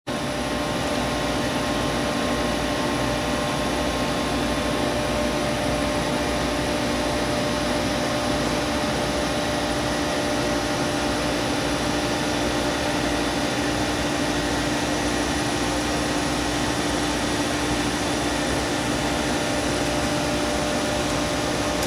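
Camdex rifle case processor running with a steady, even motor hum and whir, with no strokes or clicks from its tool heads.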